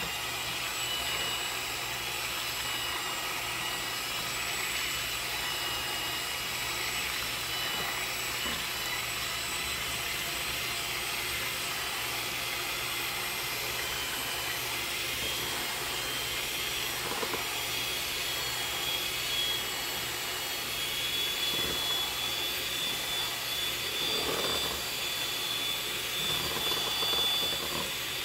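Old electric hand mixer running steadily, its beaters whipping raw eggs in a plastic bowl. A steady motor whine creeps slightly higher in pitch in the second half.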